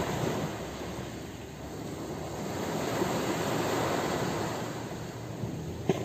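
Ocean surf washing onto a beach: a steady hiss of waves that swells about halfway through and then eases off.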